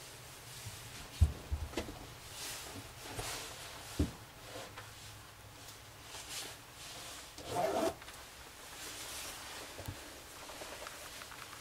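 Handling noise from a handheld camera: rubbing and rustling with a few light knocks, the sharpest about a second in.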